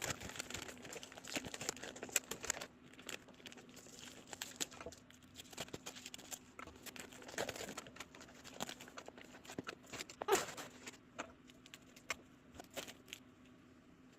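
Packing material crinkling and rustling with scattered small crackles and tearing, as a plant is unwrapped from its shipping box; a louder crackle comes about ten seconds in, and it turns quieter near the end.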